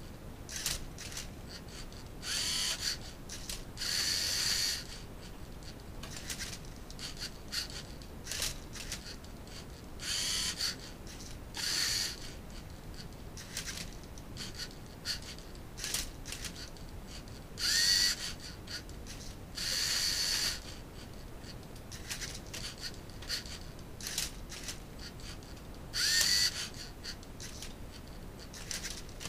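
LEGO Mindstorms NXT Rubik's cube solving robot at work: its electric motors run in short spurts of about half a second to a second, twice starting with a rising whine. Light plastic clicks and rattles come between the spurts as the cube is tipped and its layers turned.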